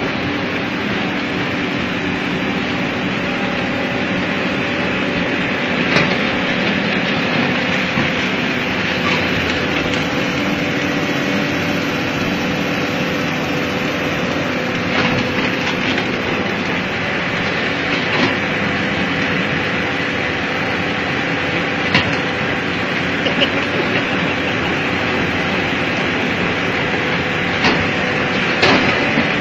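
Hydraulic excavator's diesel engine running steadily under load as its hydraulic attachment works the ground, a continuous mechanical drone with a few sharp knocks now and then.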